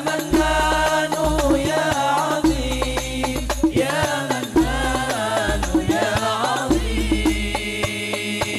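Al Banjari sholawat: men singing an Arabic devotional chant through microphones and a sound system, accompanied by a steady pattern of hand-struck frame drums (terbang). The voices bend through ornamented phrases, and in the last couple of seconds they settle on long held notes.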